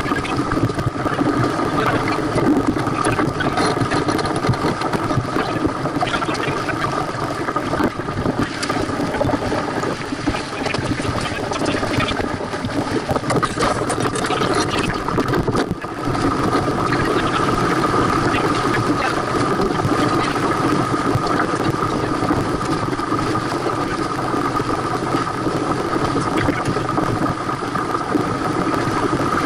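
Steady rush of wind and water on a sailboat under way, with a constant hum that grows stronger after a brief dip about halfway through.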